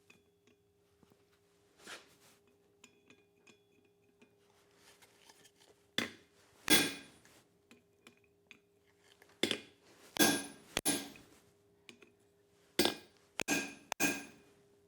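Hand hammer striking a steel ball punch against a steel piece on the anvil: a series of sharp, irregularly spaced metal blows, each ringing briefly, with a steady low hum underneath.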